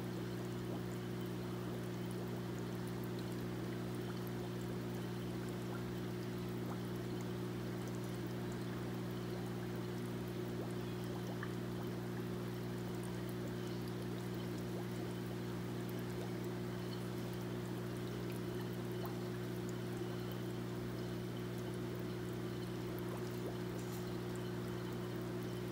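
Water pouring steadily into a stingray aquarium, as from a filter return splashing onto the surface, over a steady low hum.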